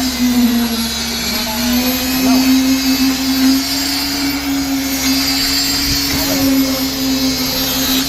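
Construction machinery running with a steady, unbroken hum during a ready-mix concrete slab pour.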